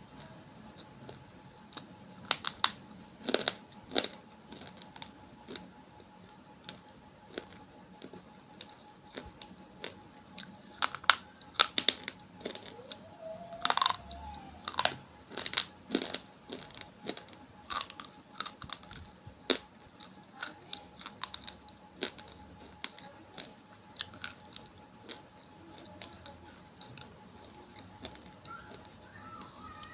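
Crisp, irregular crunching and snapping, several strokes at a time with short pauses between, the busiest stretch in the middle, over a faint steady tone.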